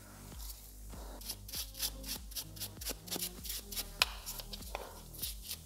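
Gloved hands handling and wiping the metal cylinder housing of a BMW air suspension compressor: a run of small irregular taps and rubbing scrapes, with one sharper click about four seconds in, over a faint low hum.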